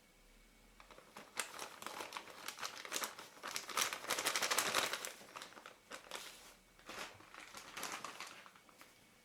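Crinkling of the wrapper of a pack of PEC-PAD lens-cleaning wipes being opened and handled, starting about a second in and loudest around the middle.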